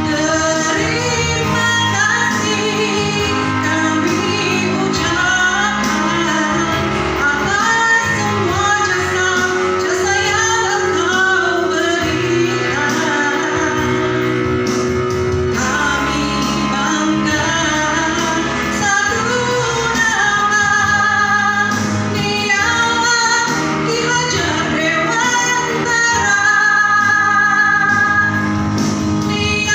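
A song with a woman singing a melody over instrumental accompaniment that includes guitar.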